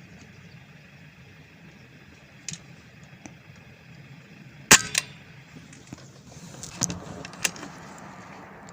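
An air rifle fires once about halfway through: a sharp crack, with a second, quieter crack a quarter second later. A few lighter clicks follow near the end.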